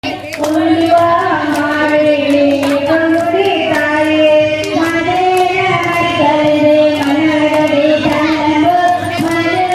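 A high-pitched voice singing a melody in long held notes, with sharp hand claps keeping time.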